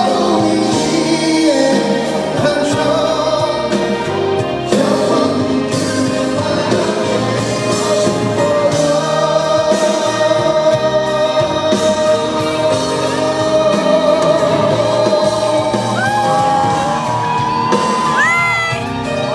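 Live pop ballad performance: a lead vocal sings over the band and choir-like backing vocals. In the middle one note is held for several seconds, and near the end come short rising vocal slides.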